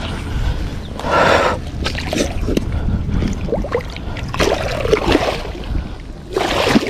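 Wind rumbling on the microphone, with heavy breathing and water splashing as a giant snakehead is released by hand into the shallows and swims off.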